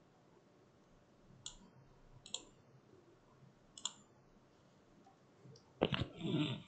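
Computer mouse clicking: three short, sharp clicks about a second apart, then a louder clatter lasting under a second near the end.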